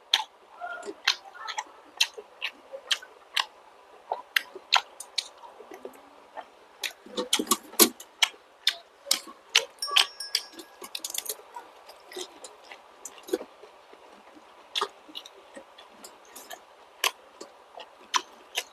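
Close-miked chewing of fertilized duck eggs (balut) with vegetables: many irregular sharp crunches and wet mouth clicks.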